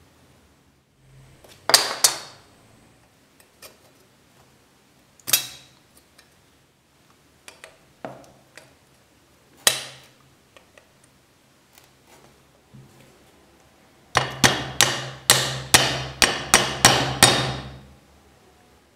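Handle pins in a knife's wooden scales being snipped with cutters, a few single sharp snaps several seconds apart. Then a quick run of about ten hammer taps, about three a second, peening the pins over.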